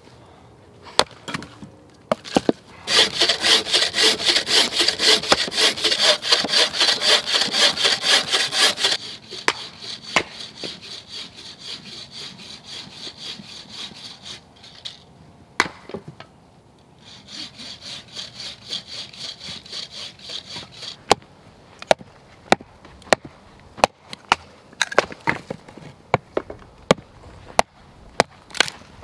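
Hand saw cutting through firewood logs in rapid back-and-forth strokes, about three a second, with a couple of short pauses. In the last third it gives way to sharp, irregular knocks of a hatchet chopping wood.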